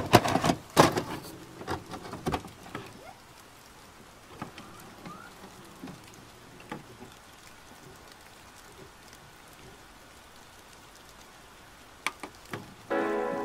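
Rain falling: an irregular patter of drops, with heavy close taps in the first couple of seconds, then a soft steady rain hiss with scattered drops. Near the end a lofi piano chord comes in over the rain.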